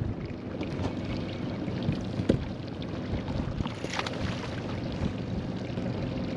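Steady water noise around a small fishing boat, with a hooked fish splashing at the surface about four seconds in.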